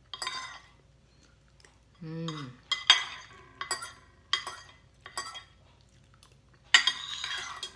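Metal spoon and fork scraping leftover rice off a ceramic plate in a series of short scrapes, with one longer, louder scrape near the end.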